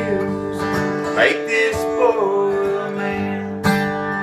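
Acoustic guitar strummed in a country-style song, with long held sung notes over it.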